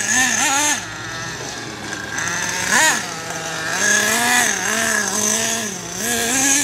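Radio-controlled car's motor revving up and down as it drives, with a sharp rev about three seconds in.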